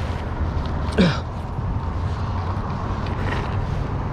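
A short, sharp rising creak about a second in, as the heavy cast-iron catch is hauled up on the magnet line, over a steady low rumble.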